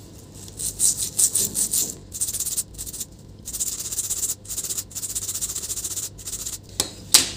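Stiff brush bristles scrubbing across a laptop motherboard in a series of back-and-forth strokes, quick at first and then longer, with a short, sharper sound near the end. The brushing is cleaning burnt residue from around a burnt capacitor.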